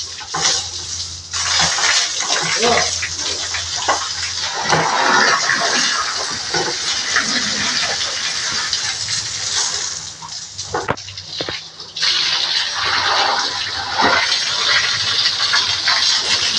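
Water spraying from a garden hose onto a pig and the concrete walls of its pen: a steady hissing splatter that breaks off briefly about two-thirds of the way through.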